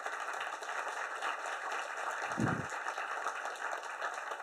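Audience applauding: many hands clapping in a steady, even patter at the end of a talk. There is a short low sound about two and a half seconds in.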